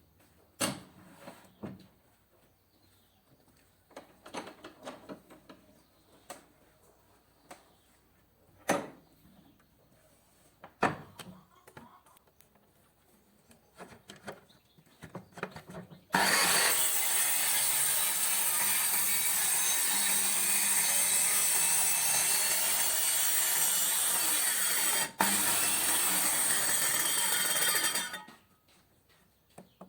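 Scattered knocks and clicks of tools and wood being handled, then a handheld cutting machine fitted with a circular saw blade starts about halfway through and runs steadily and loudly for about twelve seconds, with a brief break near the end before it stops.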